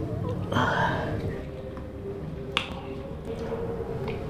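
Quiet sounds of people eating by hand, with a single sharp click about two and a half seconds in, over a low steady hum.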